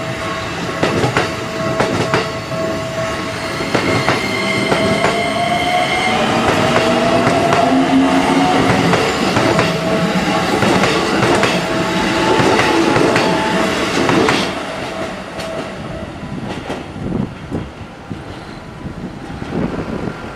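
Electric commuter train passing over a level crossing, its wheels clacking over the rail joints. A steady tone runs alongside, and a whine rises in pitch between about four and ten seconds in. The sound eases off after about fourteen seconds as the train goes by.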